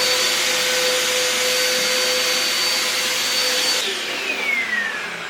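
Small electric fan motor running with a steady whine; it is switched off about four seconds in and spins down with a falling whine.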